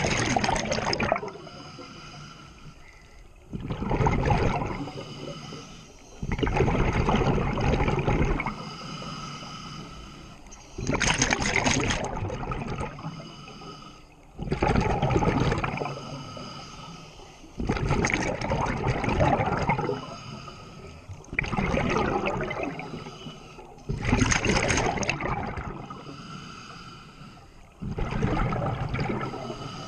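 Scuba diver breathing through a regulator underwater: a loud gurgling rush of exhaled bubbles about every three to four seconds, with quieter breathing between.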